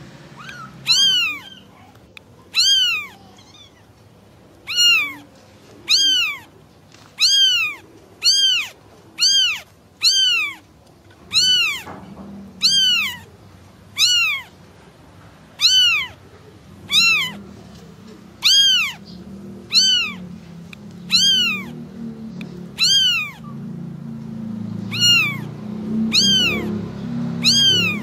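Kitten meowing to call its mother: short high-pitched meows, each rising then falling, repeated about once a second at a near-identical pitch. From about halfway through a low rumble builds underneath.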